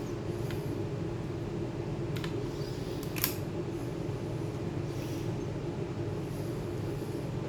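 Steady low hum with two small clicks, about two and three seconds in, the second one louder.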